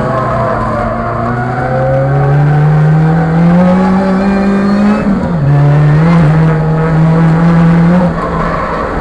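Supercharged four-cylinder engine of a Chevrolet Cobalt SS race car, heard from inside the cabin, accelerating hard with rising revs, then dropping sharply in pitch on an upshift about five seconds in. It then runs steadily at speed, easing off briefly near the end.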